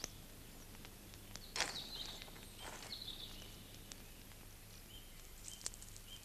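Faint outdoor ambience with a low steady hum, a few short soft noisy sounds and faint clicks, and brief high bird chirps near the end.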